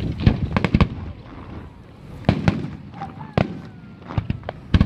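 Fireworks display: aerial shells bursting in an irregular series of sharp bangs, several in quick clusters, the loudest coming just after the start, around two and a half seconds in, and near the end.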